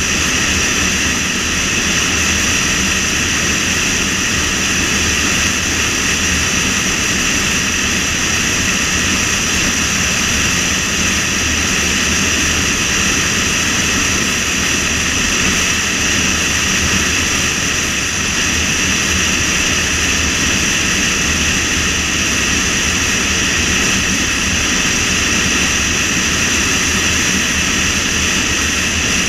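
Steady wind and road noise of a car driving at speed along a two-lane highway, an unbroken rushing sound with a high hiss on top.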